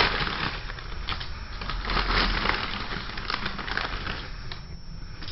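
Dense, irregular crunching and crackling: a quick run of small sharp cracks, as of something being crushed.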